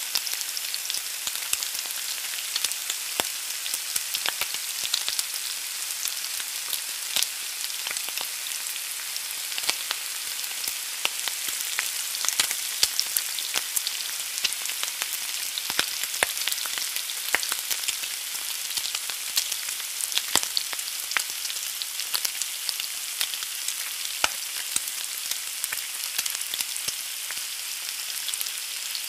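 Egg frying in a pan: a steady high-pitched sizzle with frequent sharp pops and crackles of hot fat.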